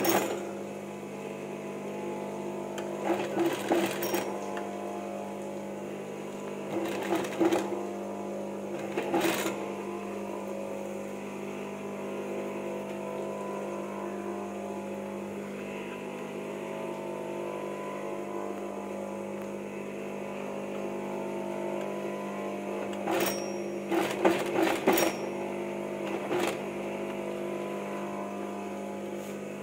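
Sewing machine stitching a beaded lace trim onto fabric in short bursts of about a second each, six or so in all, with a long pause in the middle. A steady electric hum runs underneath throughout.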